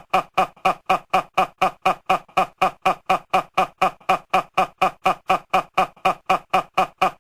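A short voiced snippet looped over and over, about four identical repeats a second, as an edited stutter.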